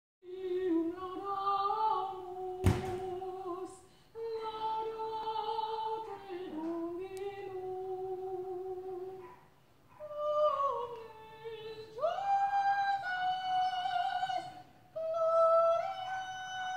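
A high classical solo voice singing slow, sustained notes with vibrato in three phrases, climbing to high held notes in the last phrase. A single sharp knock sounds about three seconds in.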